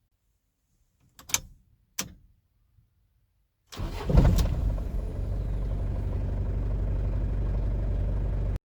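Two sharp clicks, then nearly four seconds in the Mazda B2500's 2.5 turbodiesel cranks briefly, catches and settles into a steady idle, starting on the key with a new ignition switch base fitted. The idle cuts off suddenly near the end.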